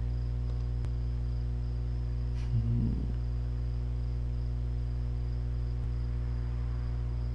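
Steady electrical hum with many low overtones and a faint high whine above it. A single mouse click comes about a second in, and a short murmured 'mm' near three seconds.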